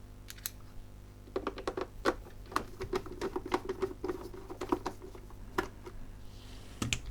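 Quick, irregular small clicks and taps of a screwdriver and hands on a Lavazza coffee machine's plastic casing as it is taken apart, starting about a second in and stopping near the end.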